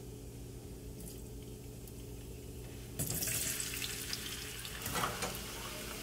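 Diced potatoes go into hot oil with cumin seeds and start sizzling suddenly about three seconds in. A spoon knocks once against the pan a couple of seconds later. Before the potatoes go in there is only a low, steady hum.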